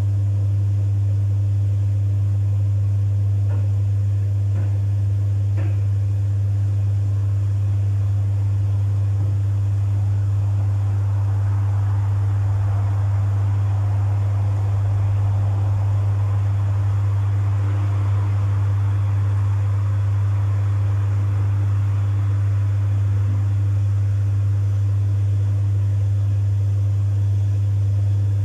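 Domus 8 kg washing machine running with a full load: a steady low hum, with a soft swishing of the tumbling wash that swells and fades in the middle.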